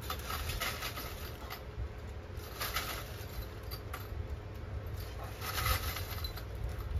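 Faint clicks and rattles of a hand pop-rivet tool being picked up and handled, in a few short clusters.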